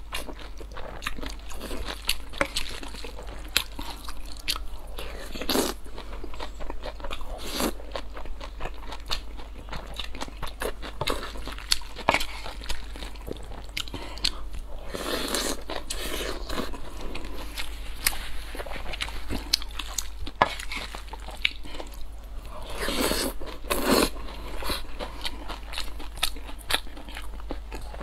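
Close-miked eating sounds: chewing stir-fried glass noodles with egg, with many short wet mouth clicks and smacks, and two longer, louder slurps about fifteen and twenty-three seconds in.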